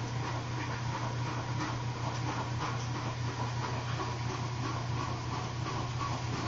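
Puppies pawing and mouthing at toys on a carpet: faint, irregular scratching and rubbing over a steady low hum.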